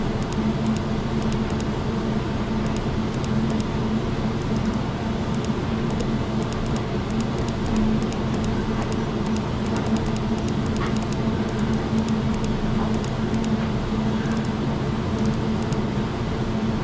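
Steady background hum and noise, a constant low drone with one held tone, with faint scattered ticks over it.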